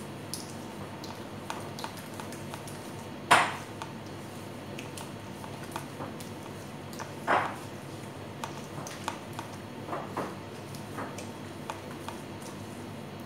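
Gloved hand mixing a yogurt and tandoori masala marinade in a stainless steel bowl: soft wet squishing with small clicks. The hand knocks the metal bowl sharply twice, about 3 and 7 seconds in, with lighter taps near 10 seconds.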